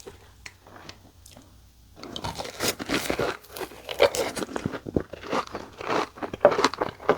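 Close-up crunching and chewing of spicy seasoned boneless fried chicken thigh pieces: faint clicks at first, then about two seconds in, a run of loud, dense crunches as the crispy coating is bitten and chewed.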